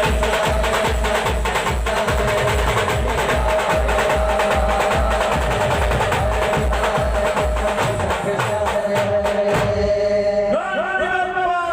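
Band music with an even, fast drum beat under a long held note; near the end the drumming stops and a man shouts.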